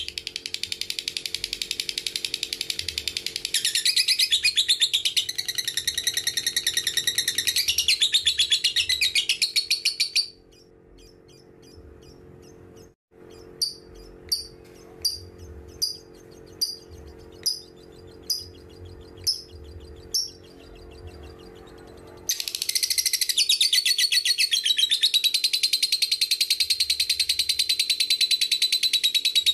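Fischer's lovebird giving the long, rapid, high-pitched chattering trill known as 'ngekek panjang', the drawn-out chatter prized in lovebird singing. About ten seconds in the chatter breaks off into a run of about eight single sharp chirps, roughly one a second, and then the long continuous chatter starts again for the last seven seconds or so.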